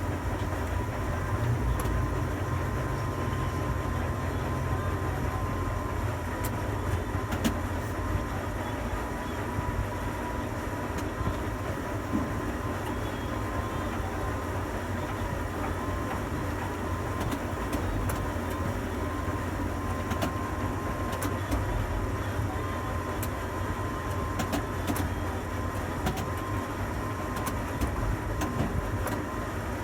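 Steady low machinery hum with a thin, even whine above it and a few faint ticks, as heard inside a tower crane's cab while it works.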